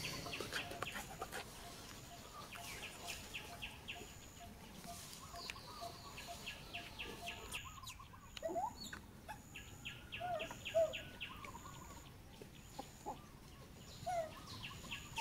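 Outdoor animal calls: runs of rapid clicking chirps, a faint high note repeating about twice a second, and a few short squeaky calls in the second half.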